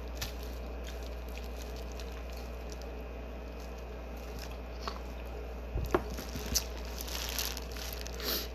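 Wet eating sounds of boiled seafood being chewed and squished, with a few sharp clicks around the middle. Near the end, a crinkling of plastic gloves and the plastic boil bag as hands reach into it. A steady low hum sits underneath.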